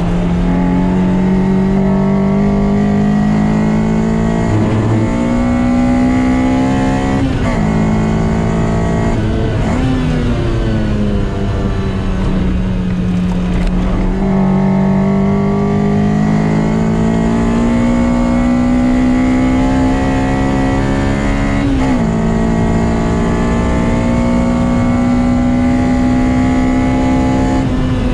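Lotus Exige 190's 1.8-litre Toyota four-cylinder engine under hard acceleration, heard from inside the cabin: its note climbs through the revs and dips back at each of several gear changes, over steady road and wind noise.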